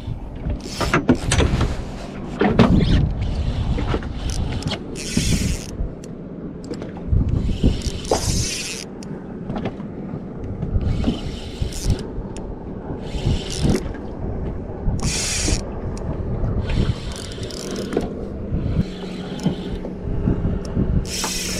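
Spinning reel working against a hooked kingfish: repeated rasping spells of cranking and drag about every two to three seconds, with scattered clicks, over a steady low hum from the boat's motor.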